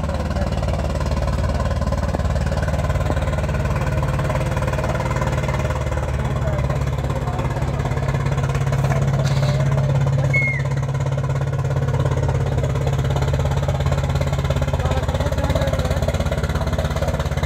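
Engine of a motorized wooden river fishing boat running steadily with a low hum as the boat travels across the river.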